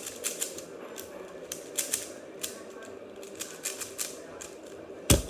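Plastic 3x3 puzzle cube with transparent pieces being turned fast during a solve: irregular clicking and clacking of the layers as they are turned, with one louder knock near the end.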